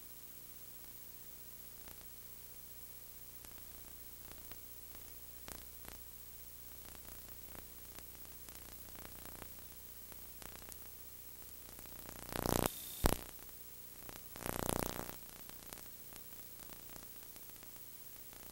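Faint steady hiss and low hum of a recording's background noise, with scattered faint clicks. Two short, louder rushes of hiss break in about twelve and fourteen seconds in.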